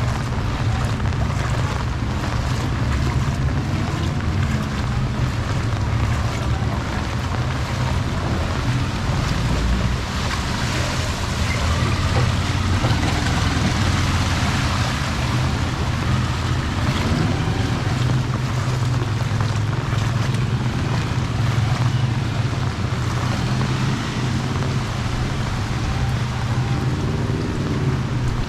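Heavy typhoon rain falling steadily, with wind buffeting the microphone and a constant low rumble.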